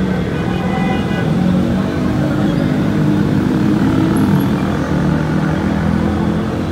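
Heavy street traffic, mostly motorbikes and scooters with some cars: many small engines running together in a steady, loud drone.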